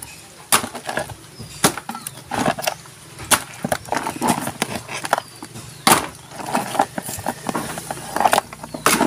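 Fish and blue crabs being shifted by hand in a plastic tub: irregular clacks and knocks of crab shells and fish against each other and the tub, the loudest knock about six seconds in.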